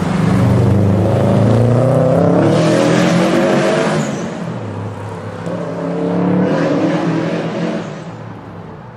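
First-generation Subaru Impreza's flat-four engine revving hard as the car spins its wheels and slides on wet cobbles. The pitch climbs for about four seconds, dips, then climbs again with a hiss of tyre spray as the car pulls away, fading near the end.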